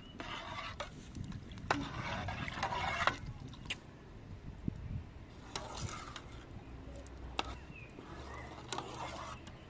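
Metal slotted spatula stirring rice and water in a large steel cooking pot: rough scraping passes along the pot, with several sharp metallic clinks against its side.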